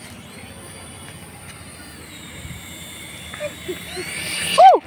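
Small electric motor of a toy RC helicopter whining in flight, its pitch stepping up and down a little as the throttle changes. It grows louder near the end, where a short loud shout cuts in.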